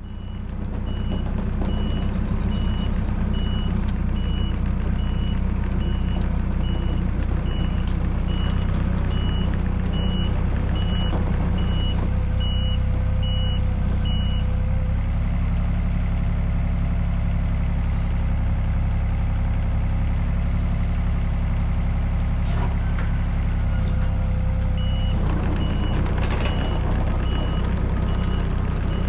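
Heavy diesel machine running steadily, with its reversing alarm beeping about twice a second while it backs up, stopping partway through and starting again near the end.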